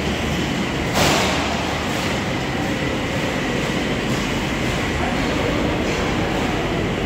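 Steady din of a large dining hall, with a short sharp clatter about a second in.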